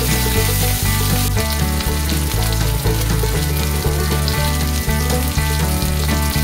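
Marinated beef slices sizzling in hot oil in a wok, a steady hiss. Background music with a repeating bass line plays over it.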